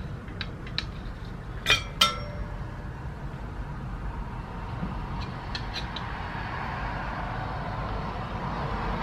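Metal tire levers clinking against the wheel rim and each other as a motorcycle tire is levered on, with two louder ringing clinks about two seconds in and a few light clicks later, over a steady low rumble.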